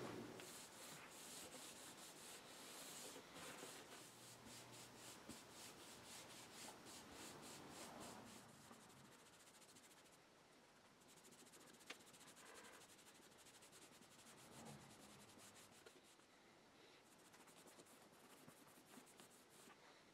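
Faint, quick back-and-forth rubbing of a cloth French-polishing pad along a wooden door frame, with one small click near the middle.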